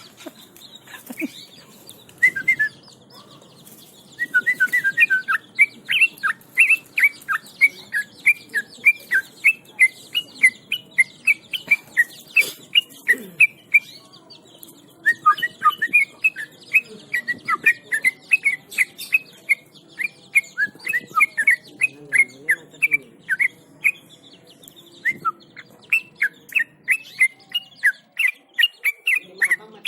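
Yellow-vented bulbul in full song, a fast, continuous run of short chirping notes, several a second, broken by brief pauses about halfway and near the end.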